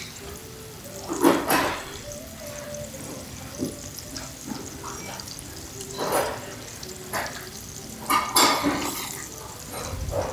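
Eating sounds from close up: several short, loud slurps and mouth noises about a second in, around six seconds and again around eight seconds, over a faint steady sizzle from a tabletop griddle of grilled seafood and meat.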